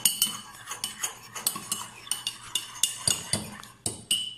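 Metal teaspoon stirring borax into warm water in a ceramic mug, clinking rapidly and irregularly against the sides. There is a last clink near the end.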